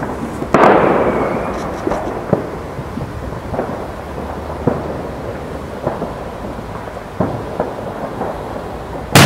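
Heavy salute firecracker burning through its flame stage, with scattered sharp crackles and pops, after a loud burst with a rumbling fade about half a second in. Right at the end its flash charge goes off in a very loud bang.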